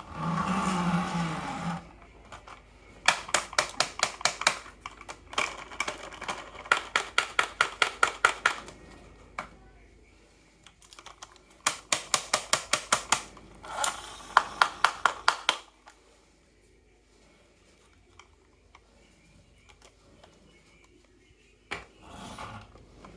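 Glass marbles running down a handmade marble run of plastic rain gutters and wooden rails: a short rolling rumble at the start, then four runs of rapid, evenly spaced clicks, about four to five a second, as marbles clack along the track, with another brief roll near the end.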